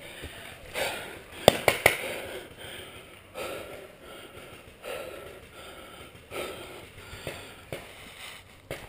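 A paintball player breathing close to a helmet-mounted microphone, a soft puff about once a second, with two sharp cracks about a second and a half in.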